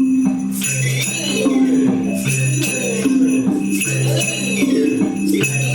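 Classroom instrument ensemble playing a repeating ostinato: a low bass line of a few pitched notes that cycles about every second and a half to two seconds, with jingle bells ringing and shakers keeping the beat.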